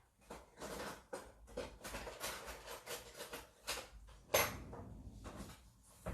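Kitchen utensils and dishes being handled during food preparation: a quick run of short scrapes and clinks, with one sharper knock a little past the middle.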